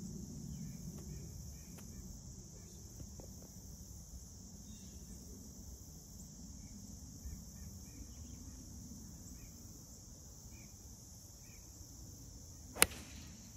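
A golf iron striking a ball once, a single sharp crack near the end, over a steady high hum of insects.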